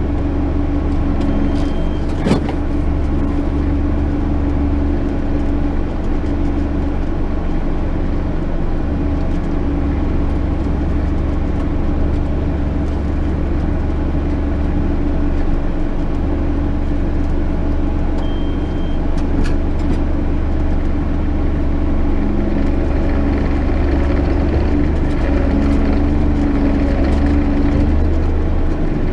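JCB Fastrac 8250 tractor running steadily under load while pulling a plough, a deep, even engine drone with a low hum. A short sharp click about two seconds in.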